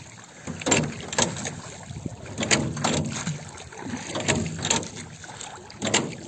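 A small boat being moved through the water by hand strokes: pairs of splashing, knocking strokes about half a second apart, repeating roughly every two seconds.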